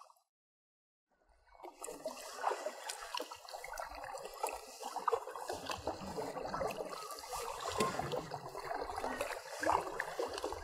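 Kayak paddle working the water close to the microphone: splashing, trickling and dripping, full of small crackles. It starts about a second and a half in.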